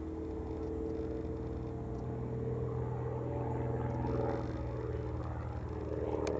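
Slingsby T67M Firefly's piston engine and propeller droning steadily from a distance as the aerobatic light aircraft flies its display, swelling slightly near the end.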